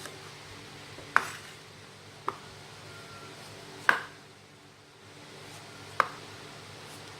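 Knife peeling the skin off a breadfruit: four sharp knocks of the blade, a second or two apart, each with a short ring.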